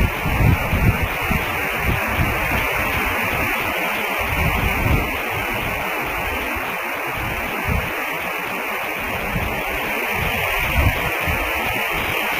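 Steady static-like hiss from an outdoor nest camera's audio feed, with uneven low rumbles underneath; no eagle calls.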